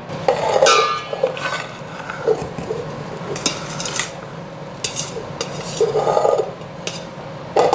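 A utensil scraping and clinking against a stainless-steel Instant Pot inner pot as cooked white rice is scooped out, with a few irregular sharp metallic clinks.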